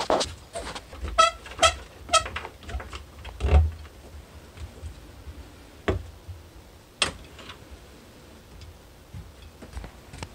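Squeaks and clicks from a plastic shower drain locknut being turned tight with a trigger clamp: three short squeaks close together about a second in, then a few knocks as the clamp is shifted and worked.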